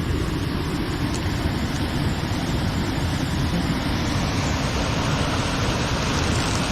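Steady rush of a waterfall and fast-flowing stream: an even, unbroken wash of water noise, heaviest in the low end.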